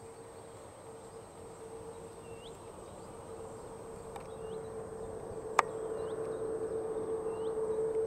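Airbus A330-300 airliner's General Electric CF6 jet engines on landing approach: a steady whine and rumble that grows louder as the aircraft nears. Short rising chirps from a bird repeat every second or two, and a single sharp click comes about five and a half seconds in.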